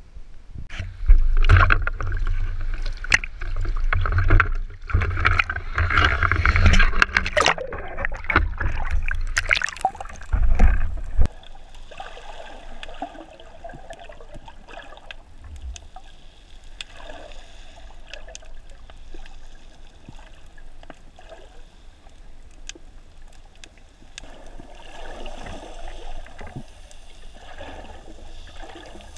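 Water splashing and sloshing against a GoPro in its waterproof housing, loud and choppy with knocks, until it cuts off suddenly about eleven seconds in; then the muffled hush of the camera under water, with faint sparse clicks.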